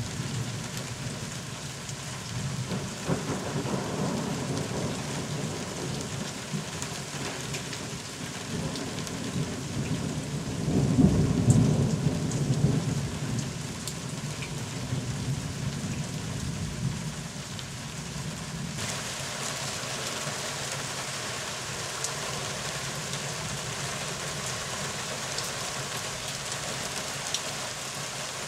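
Steady rain with rolling thunder: a low rumble swells a few seconds in, rises to its loudest near the middle, then dies away, leaving the rain.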